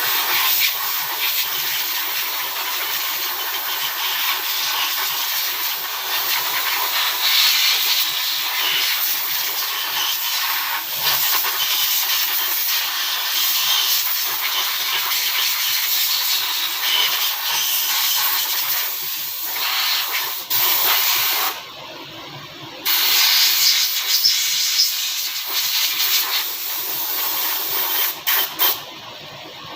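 Loud, steady hissing spray, as of air or liquid under pressure. It cuts out briefly about two-thirds of the way through and again near the end.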